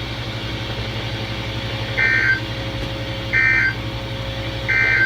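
Emergency Alert System end-of-message code: three short, identical bursts of warbling two-pitch data tones about 1.4 s apart, marking the end of the warning. Under them runs a steady low hum from the receiver.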